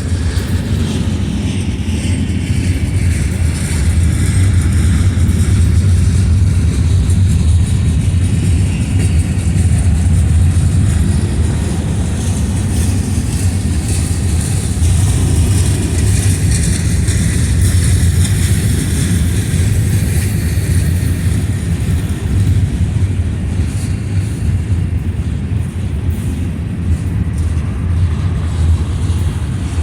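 Diesel-hauled freight train rolling past, a steady loud low rumble with a high hiss from the wheels and cars.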